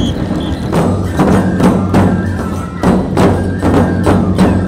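Nebuta bayashi festival music played live: taiko drums and clanging hand cymbals struck in a steady beat, about three strikes a second, over held flute notes.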